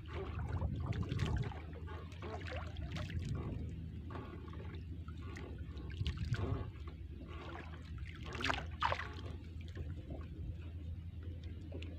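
Water trickling and dripping as a wet handline is drawn in hand over hand over the side of a wooden outrigger canoe, with small splashes and rustles, over a steady low hum.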